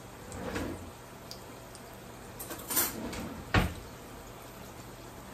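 A few short knocks and clatters of kitchen handling, the sharpest about three and a half seconds in, over a low steady background.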